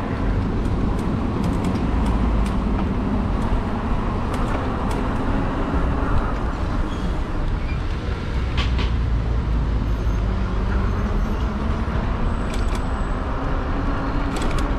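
Steady low rumble of riding noise on a moving e-bike among street traffic, with a few brief clicks and rattles along the way.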